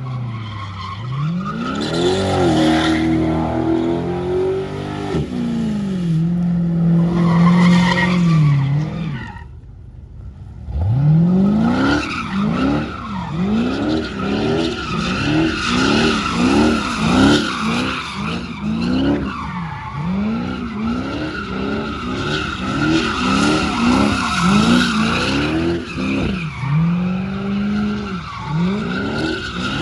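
Car engine revved hard, held high twice, then pumped up and down about twice a second for a long stretch, with a steady tyre squeal over it, as in a burnout or donuts. It drops back and goes quieter briefly about ten seconds in.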